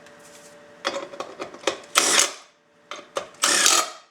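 Metal knocks and two short rasping scrapes as the orbital attachment, on its anchoring bar, is set into and clamped in a bench vise.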